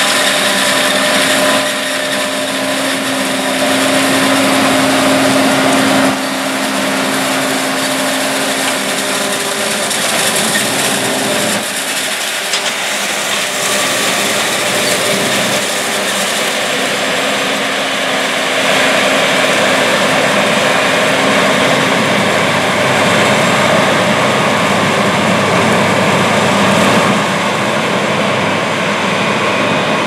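John Deere 7780 self-propelled forage harvester running under load while chopping corn for silage, its engine and cutterhead making a loud, steady drone, together with a John Deere 8245R tractor pulling the silage wagon alongside. The level steps up and down slightly a few times.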